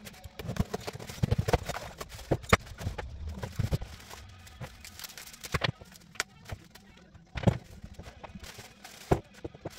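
Irregular knocks and clicks with rustling as a small cardboard box and plastic parts bags are opened and small metal parts and a hose are set down on a wooden workbench.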